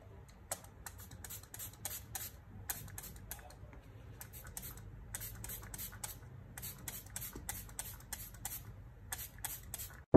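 Small plastic spray bottle spritzing water onto potting soil: a quick run of short sprays, about three to four a second with brief pauses, misting the soil to moisten it.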